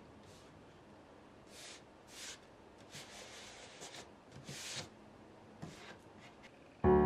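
Hands rubbing and smoothing tape down along the edges of a sheet of watercolour paper on a board: a series of soft, brushing swishes. Piano music comes in abruptly near the end.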